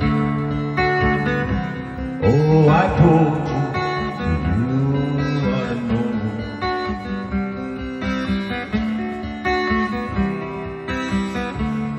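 Seagull acoustic guitar strummed in a steady chord rhythm, the instrumental intro of a pop-rock song.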